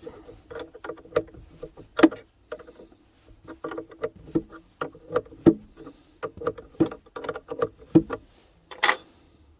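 Metal spanner clinking and knocking on a 10 mm nut as it is worked loose: a run of irregular short metallic clicks, with one louder ringing clink near the end.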